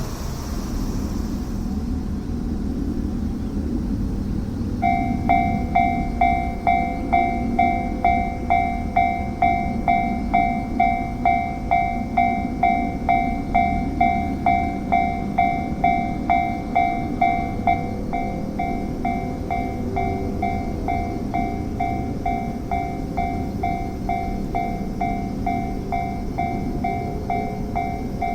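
Japanese railway level-crossing warning bell starts ringing about five seconds in, a quick, even series of clangs of just under two a second that keeps going, signalling that a train is approaching. A low rumble sits underneath.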